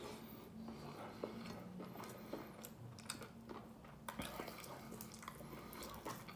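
A person chewing a mouthful of rice and meat eaten by hand, with faint, scattered wet mouth clicks. Fingers work rice and meat on a glass plate between bites.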